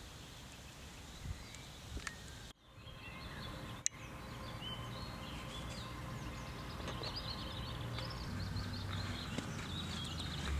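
Birds chirping and twittering over a steady outdoor background hiss. A sudden brief gap comes about two and a half seconds in, with a single sharp click soon after.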